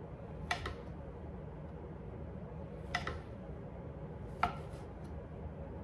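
Chef's knife dicing summer sausage, the blade tapping sharply against the cutting board four times: twice close together about half a second in, then once near three seconds and once near four and a half seconds.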